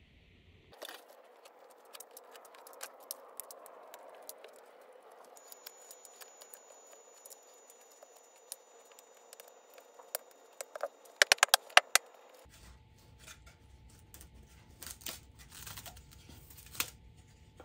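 Gloved hands working on a balsa wing frame laid over plastic wrap: scattered small clicks, taps and rustles, with a quick run of about six sharp clicks around eleven seconds in.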